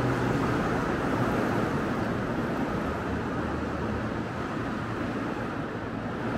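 Steady city street noise with a low rumble of passing vehicles.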